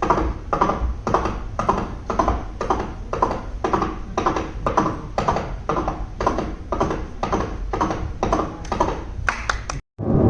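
Coconut shell halves knocked in an even clip-clop rhythm, about two beats a second, to imitate a horse's hooves. The beats quicken near the end, then cut off suddenly.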